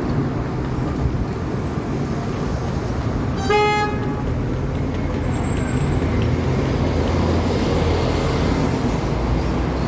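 Steady low traffic rumble with one short vehicle horn toot about three and a half seconds in.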